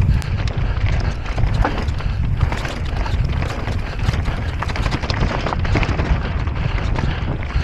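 Electric mountain bike descending a rough trail at speed, rattling and clattering over rocks with many sharp irregular knocks over a constant low rumble.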